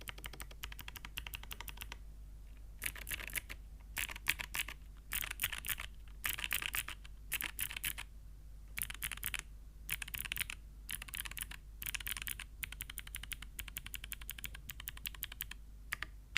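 Fast typing on a TKD Cycle8 mechanical keyboard with Gateron Melodic Clicky switches: runs of crisp, rapid keystroke clicks broken by short pauses.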